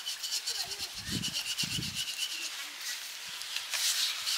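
Rolling pin rolling out momo dough wrappers, a quick rhythmic rubbing and scraping.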